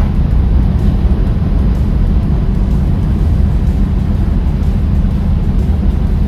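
Chevy Nova on a test drive, heard from inside the car: a steady low rumble of engine and road noise.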